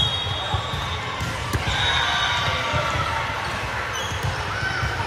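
Volleyball gym sounds: volleyballs thudding on hands and the hardwood floor now and then over background chatter of spectators and players, echoing in a large hall.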